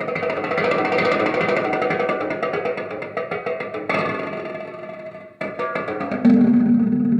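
Music with plucked, guitar-like strings played back through a Harman Kardon HK 3490 stereo receiver and AAD 260 loudspeakers. New phrases come in sharply about four and five and a half seconds in, and a strong low note holds near the end.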